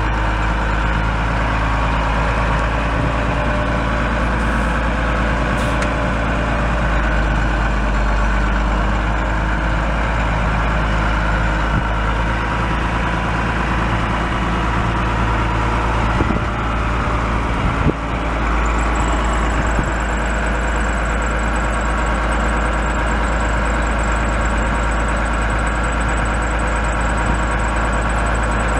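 1987 Ford F700 dump truck's 6.6L six-cylinder diesel idling steadily. A few knocks come just past halfway. Then a thin high whine joins and holds, from the power take-off driving the hydraulic hoist pump as the dump bed is raised.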